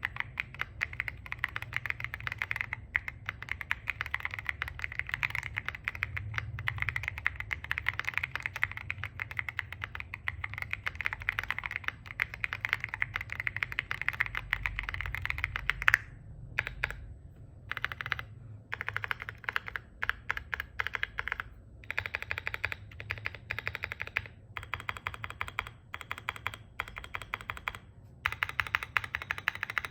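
Typing on a QK65 mechanical keyboard with JKLP Holy Panda Pro tactile switches, a POM plate and CAT-profile keycaps: a fast, dense run of keystrokes for about the first half, then shorter bursts with brief pauses between them.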